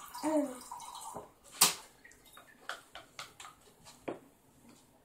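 A brief high voice sound, then one sharp wet smack and a string of short, wet clicks and taps, the messy sounds of spoon-feeding a baby, fading out after about four seconds.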